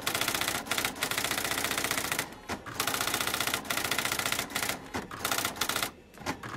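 Typewriter sound effect: rapid runs of key clacks with short pauses between them, fainter near the end.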